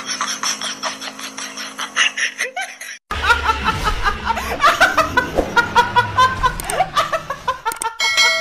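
A woman laughing loudly and hysterically in high-pitched bursts, starting suddenly after a brief gap about three seconds in. Near the end a bright ding sound effect with ringing tones comes in.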